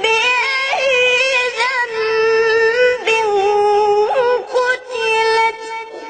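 A young child reciting the Quran in melodic tajweed style: a high voice holding long, drawn-out notes with quick ornamental turns in pitch, broken by a short breath about three seconds in.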